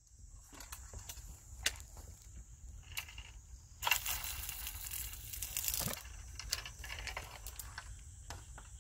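Rustling, crinkling handling noises with scattered clicks, loudest in a rustle of about two seconds near the middle, as eel rods are set out on the grassy bank. Underneath runs a steady high insect drone.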